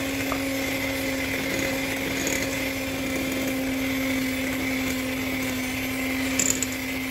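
Electric hand mixer running steadily at one speed, its beaters whisking flour into a wet egg batter in a glass bowl, with a steady motor hum and a few light clicks near the end.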